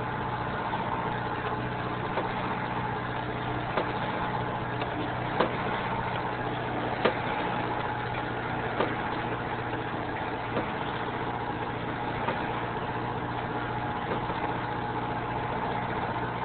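A sailboat's auxiliary engine running steadily at low revs, a constant drone, with light sharp ticks recurring about every second and a half to two seconds.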